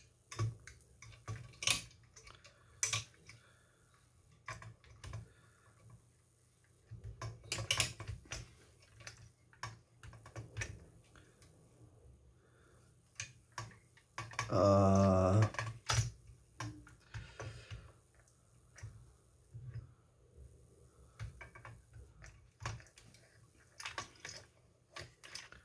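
Irregular clicks and taps of hard model-kit parts being handled and pressed together as an engine-and-gearbox assembly is fitted into a model car's chassis. About halfway through there is a short low hum from a person.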